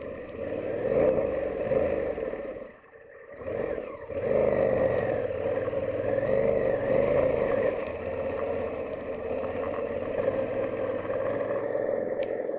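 Yamaha Ténéré 700's 689cc CP2 parallel-twin engine pulling the bike through a shallow stream ford, its revs rising and falling with the throttle. It dips briefly about three seconds in, then picks up again and runs on steadily.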